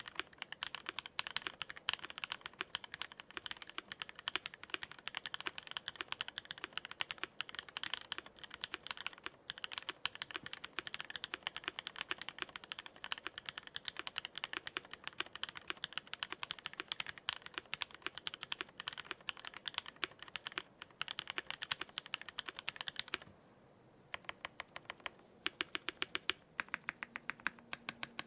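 Fast typing on a custom mechanical keyboard with lubed long-pole AEboards Raed switches on an aluminium plate under GMK keycaps: a quick, dense run of poppy clacks. About 23 seconds in, the typing stops briefly, then goes on as slower, separate keystrokes.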